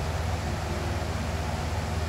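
Box fan running steadily: an even rush of air over a deep low hum, with no change in speed.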